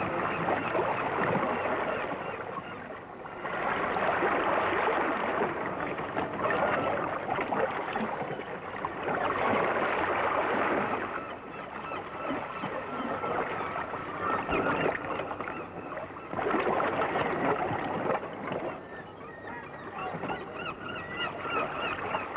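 A flock of gulls crying and squawking, the calling swelling and fading several times.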